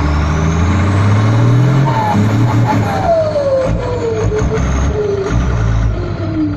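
Dump truck's diesel engine revving up, then its turbocharger whistle falling away in a long descending howl as the revs drop, with a second shorter falling whistle near the end.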